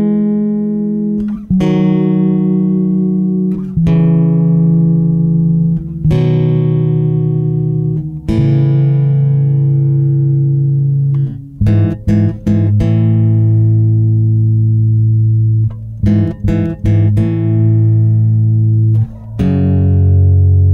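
Background guitar music: sustained plucked notes over a bass line, the chord changing about every two seconds, with a few quick stops and restarts in the middle.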